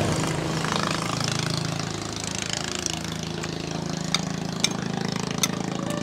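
A motor drones steadily, with a few sharp clicks in the second half.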